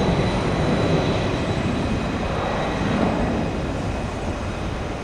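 Boeing 757 jet airliner on its takeoff run and climb-out: a steady, loud engine roar with a faint high whine, easing off slightly near the end.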